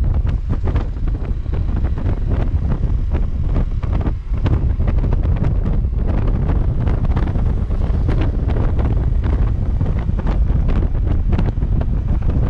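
Heavy wind buffeting the microphone: a steady, dense low rumble with crackling gusts. There is no horn tune.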